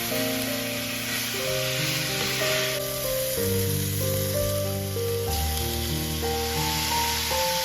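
Food sizzling as it fries in a hot pan, a steady hiss that drops back about three seconds in and picks up again about two seconds later, with background music playing.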